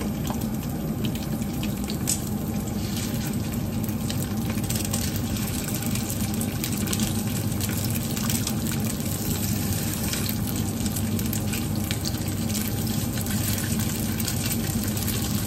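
Stuffed tofu puffs frying in hot oil in a wok: a steady sizzle with many small crackles, over a steady low hum.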